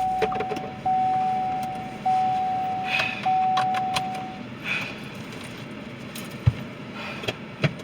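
Car warning chime: a steady single tone sounding four times in a row, each about a second long, stopping about four and a half seconds in. Keys jingle and small clicks come along with it, and a single low thump follows about six and a half seconds in.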